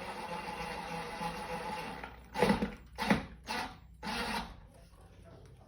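Cordless impact drill driving a screw into a window frame: the motor runs steadily for about two seconds, then four short bursts as the screw is snugged down.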